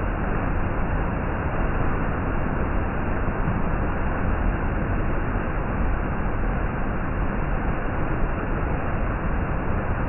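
Waterfall cascading down rock steps into a pool of floodwater, a steady rushing of water.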